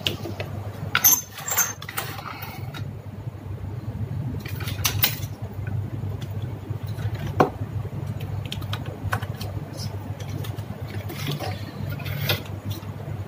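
Plastic wire connectors and a screw terminal block being handled and plugged together: scattered clicks and light rattles over a steady low hum.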